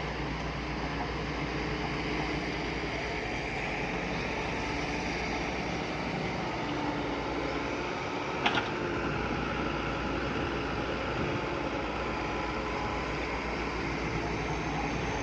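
Diesel engine of heavy earthmoving machinery running steadily under work, with one sharp knock about halfway through.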